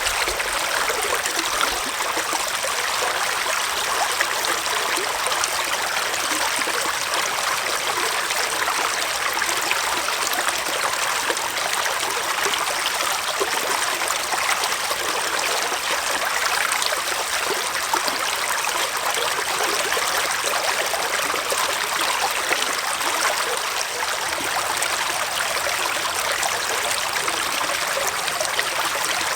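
Small forest stream flowing and trickling over rocks, a steady even rush of water.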